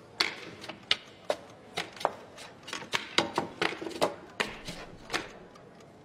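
Quick, irregular wooden clacks of chess pieces and sticks on a wooden chessboard, imitating a speed chess game played in real time. A few clacks are louder than the rest, and they thin out near the end.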